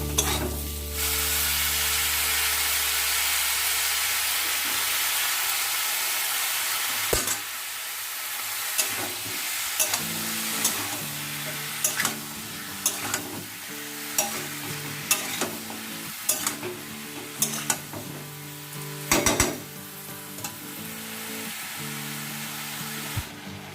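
Diced brinjal, pumpkin and potato sizzling in hot oil with spices while being stirred. A spatula clicks and scrapes against the pan every second or so. The sizzle is loudest for the first several seconds and then quieter, over background music.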